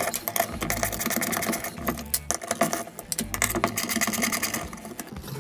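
Screwdriver undoing the T30 Torx screws that hold the electric window motor onto a BMW Z4 window regulator: a fast run of metallic clicks and rattles, with patches of low hum.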